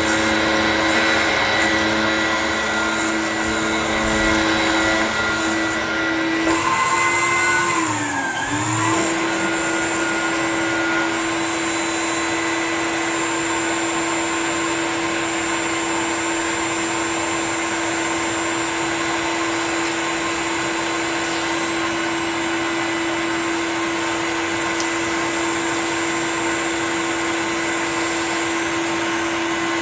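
Dyson DC01 bagless upright vacuum cleaner running with a steady motor whine while it sucks up dirt from the floor. About eight seconds in, the whine dips briefly in pitch and then recovers.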